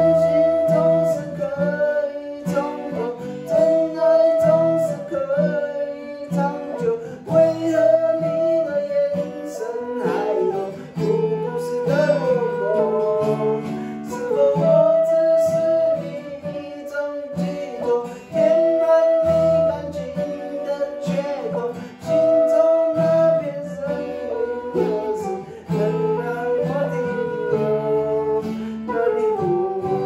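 Acoustic guitar strummed and a man singing, with an end-blown bamboo flute playing long held notes alongside.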